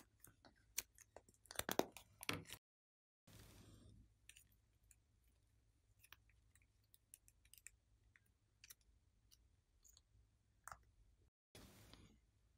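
Sticky clicks and pops of soft clay and slime being squeezed out of a plastic palette mould and worked between the fingers: a quick run of clicks in the first two seconds or so, then faint, scattered ones. The sound drops out completely twice, briefly.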